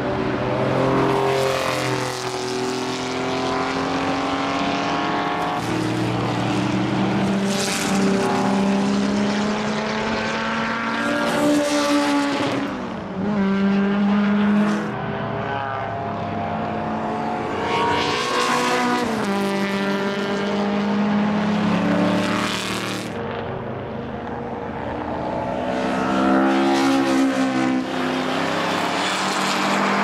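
Several historic racing cars driving past one after another at speed. Their engine notes overlap, rising under throttle and dropping sharply in pitch several times with gear changes.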